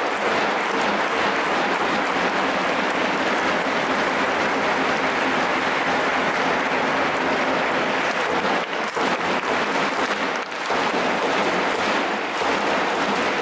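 Large football stadium crowd applauding steadily, a dense even wash of clapping.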